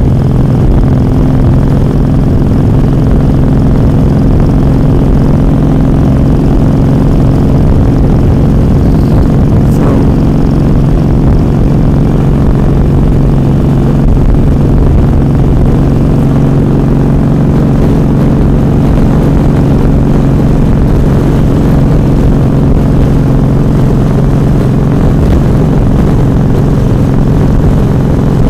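Kawasaki motorcycle's engine running steadily at highway cruising speed, heard from the rider's seat under a constant rush of wind and road noise.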